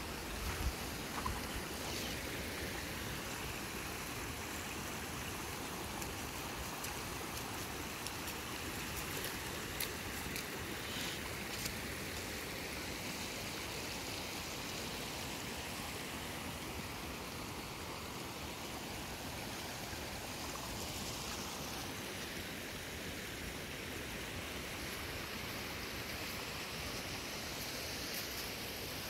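Muddy floodwater flowing in a swollen river, a steady rushing noise.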